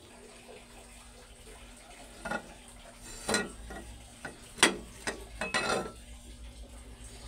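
A metal utensil scraping and clinking against a metal pot of cooked rice: several short scrapes over a few seconds, with one sharp clink about halfway through.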